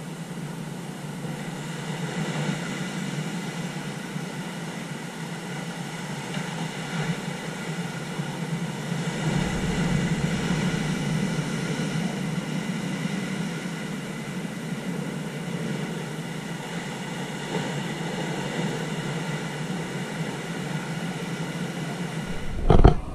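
Ocean surf breaking on a rocky shore: a steady roar of waves that swells about ten seconds in. A sharp loud knock near the end.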